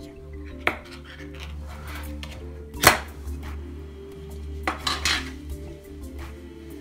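A metal tin of stuffed grape leaves being opened and handled: a few sharp metallic clanks and scrapes, the loudest about three seconds in and a small cluster near five seconds. Quiet background music underneath.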